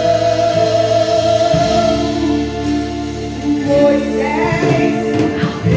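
Gospel song with singing over held instrumental notes and a few percussion strokes.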